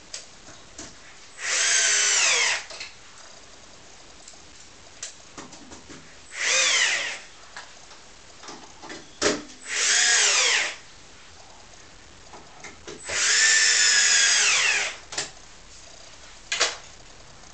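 Cordless drill/driver driving screws through a steel shelf bracket into the wall: four short runs of motor whine, the pitch falling during each run, with a few light clicks between.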